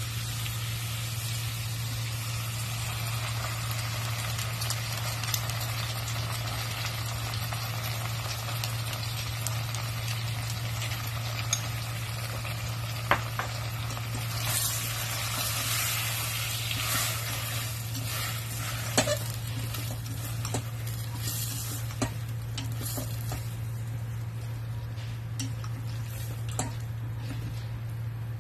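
Fried pork ribs sizzling in a stainless steel saucepan as they are stirred with chopsticks, with a few sharp clicks of the chopsticks against the pan. The sizzling grows louder for a few seconds about halfway through as the sweet and sour sauce goes in. A steady low hum runs underneath.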